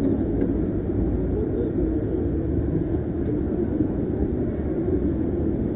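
Steady low rumble at an even level, with no distinct events.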